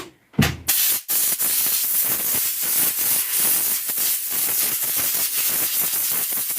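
Aerosol spray cleaner hissing onto the armature of a cordless angle grinder in a long, loud spray, broken briefly about a second in, with a knock as it starts.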